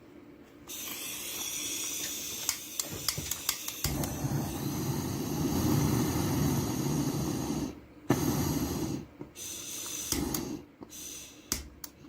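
Handheld gas torch being lit: gas hisses on, a few sharp ignition clicks, then the flame catches about four seconds in with a low, steady rushing burn. The flame sound breaks off and starts again a few times near the end.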